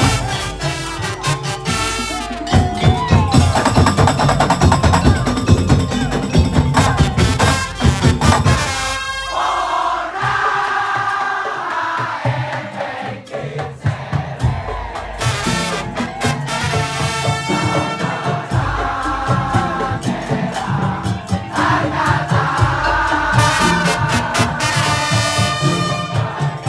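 Madurese tong-tong ensemble music: dense, rapid beating of wooden slit drums and drums, which gives way about nine seconds in to a sustained melody line over a pulsing bass beat.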